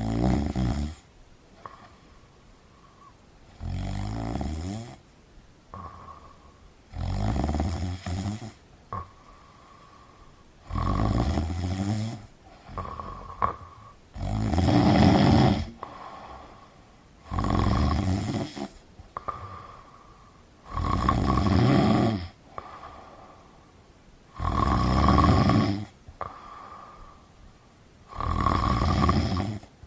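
Domestic cat snoring loudly in a slow, even rhythm: a deep rattling snore about every three and a half seconds, with a faint whistle on the breath in between.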